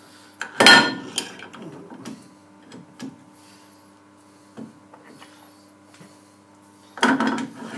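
Steel parallel bars clanking against a heavy cast-iron part and the machine table as they are set in place as packers. Two loud clanks, about a second in and near the end, with a few light taps between.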